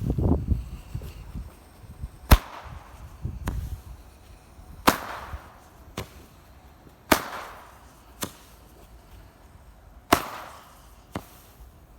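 Weco 'Fat Lady' 7-shot firework battery firing: four loud bangs a few seconds apart, each trailing off, with a fainter crack about a second after most of them and a low rumble near the start.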